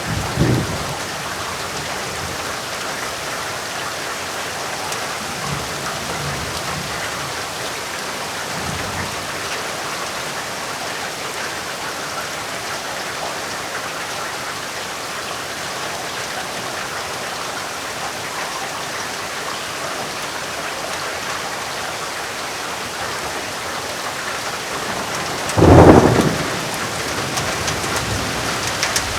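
Heavy rain falling steadily, with a low thunder rumble fading away in the first second and one loud thunderclap near the end.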